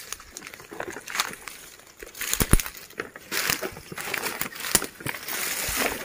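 Footsteps through dry leaf litter and undergrowth, leaves rustling and twigs crackling in irregular steps, with a few sharper snaps.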